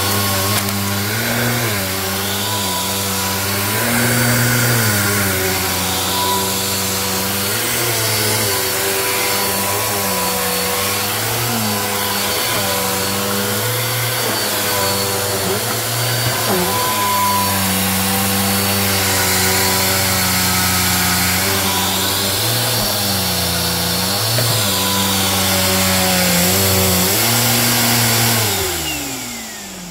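Bissell Helix upright vacuum cleaner running on carpet, its motor pitch dipping briefly every few seconds. Near the end the motor is switched off and winds down, its pitch falling as it fades.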